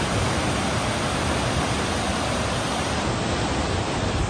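Churning, rushing water of a large cruise ship's wake, heard as a steady loud hiss.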